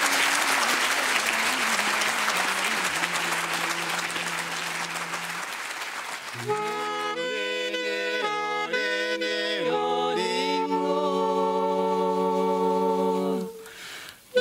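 Audience applause fading out. Then a solo instrument, likely a wind instrument, plays a short melody of several notes, ending in one long held note that stops just before the end.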